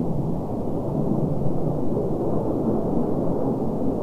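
Distant F-15C fighter jet flying low, a steady deep rumble from its twin turbofan engines.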